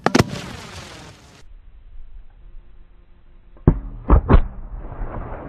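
Lift charge of a firework aerial shell firing from a mortar tube in a rack: one sharp bang with a short ringing tail, cut off after about a second. About three and a half seconds in, the launch is heard again slowed down, as three deep thumps close together followed by a low rumble.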